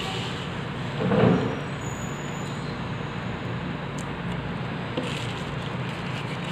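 Steady background noise with a low hum, swelling briefly about a second in, and two faint clicks about four and five seconds in as a phone LCD screen is handled.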